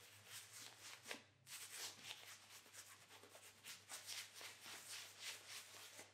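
Faint, quick bristly swishing of a shaving brush working wet shaving-cream lather over a bearded face, stroke after stroke, with a brief pause about a second and a half in.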